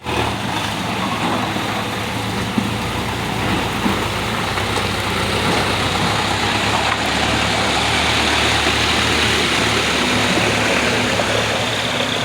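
A heavy diesel engine running steadily with an even low drone.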